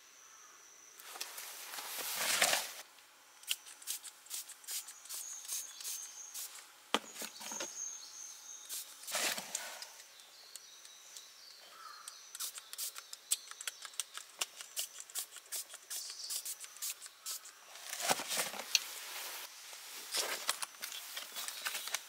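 Outdoor gear being handled and put on: rustling and small clicks throughout, with three longer swishing rustles, about two seconds in, near the middle and late on. Faint bird chirps behind.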